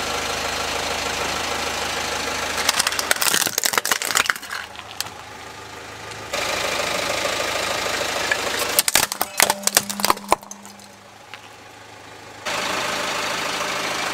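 Steady car engine running close by, broken twice by a burst of sharp cracking and snapping as the car's tyre crushes plastic toys: first a small plastic robot toy, then a plastic model airliner.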